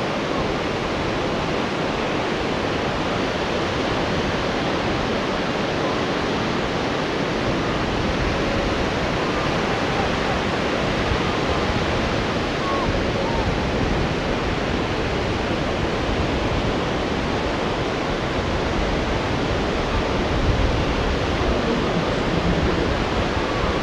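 Waves breaking in a rough, wind-whipped sea and wind blowing: a steady, loud rushing noise with no breaks, with a rumble that comes and goes at the low end.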